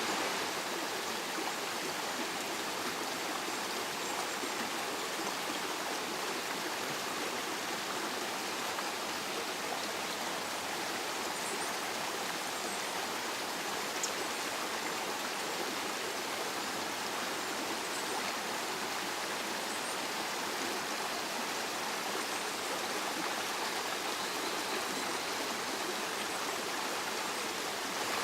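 Stream water running steadily: a constant, even rush of flowing water.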